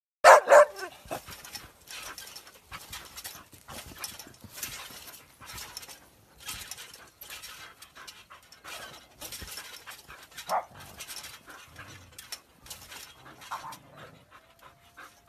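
A dog panting hard in quick, regular breaths, with a short, loud cry at the very start and a couple of brief higher cries later.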